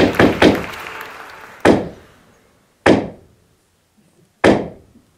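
The French theatre's traditional 'trois coups': a wooden staff pounded on the stage floor. A rapid run of knocks dies away, then come three slow, heavy blows a little over a second apart, each echoing in the hall, signalling that the performance is about to begin.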